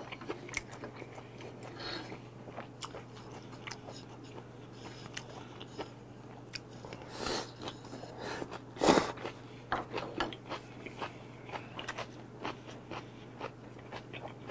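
Close-miked chewing and biting of yangjangpi: glass noodles, shredded vegetables and seafood in mustard sauce, with many small wet clicks and crunches. A louder burst of eating noise comes about nine seconds in, and a faint steady hum lies underneath.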